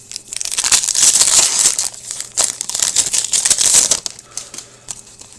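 Upper Deck hockey card pack wrapper being torn open and crinkled by hand, a dense crackling that runs for about three and a half seconds and then dies down.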